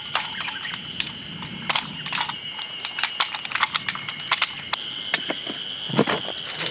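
Metal tarp poles being taken apart and knocked together: irregular sharp clicks and clacks, several in quick runs, over a steady high whine. One dull thump about six seconds in.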